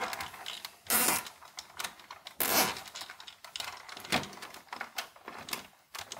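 Nylon cable ties being pulled tight around a battery pack: irregular ratcheting clicks and rasps, with plastic handling rustle, the strongest pulls about a second in and about two and a half seconds in.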